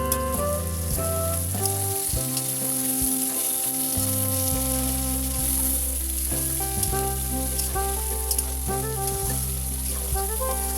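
Chicken curry frying and sizzling in a pan, a steady hiss with small crackles, over background music with a melody and a bass line.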